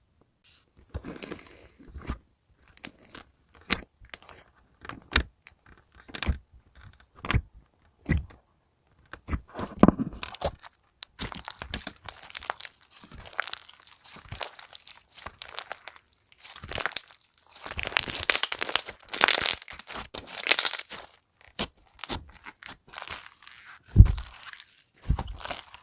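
Slime being squeezed and pressed by hand, crackling and crunching. Separate pops come first, then denser, louder crunching in the second half, with a sharp thump near the end.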